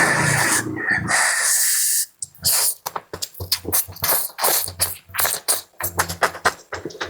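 Close-miked eating sounds: about two seconds of continuous noisy slurping of noodle soup, then rapid, irregular wet chewing and lip-smacking clicks.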